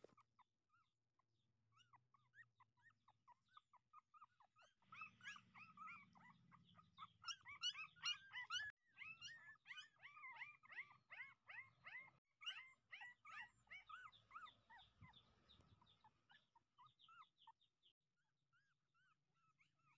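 Nineteen-day-old puppies whimpering: short, high-pitched squeaks, scattered at first, then many overlapping in quick succession for about ten seconds before thinning out again.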